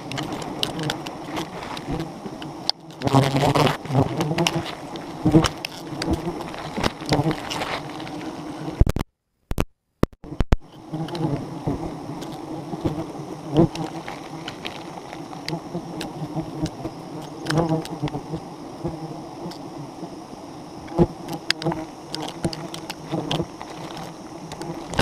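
A swarm of wild honeybees buzzing thickly around an opened comb, with close knocks and clicks from the comb being handled. The sound cuts out completely for about a second and a half near the middle.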